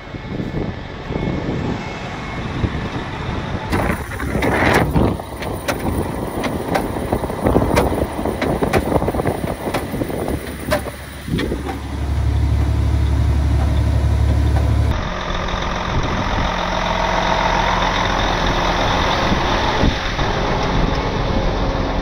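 Heavy trucks' diesel engines running, with scattered knocks and clatter in the first half. About twelve seconds in, a steady low engine drone from inside a truck cab lasts about three seconds.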